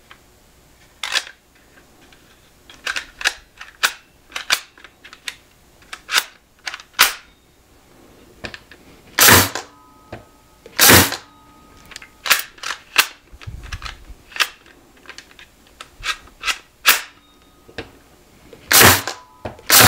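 Metabo 23-gauge cordless pin nailer firing pins one at a time into an oak block: a long series of sharp snaps at uneven intervals, some much louder than others. The loudest come about nine, eleven and nineteen seconds in.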